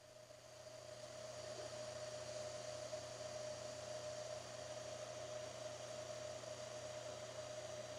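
TIG welder arc burning on steel sheet while a plug weld is filled: a steady electrical hum with a high hiss, swelling over the first couple of seconds as the arc comes up, then holding even.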